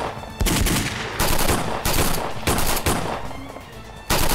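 Gunfire: a run of single shots and short automatic bursts, thinning out after the middle, with one loud shot near the end.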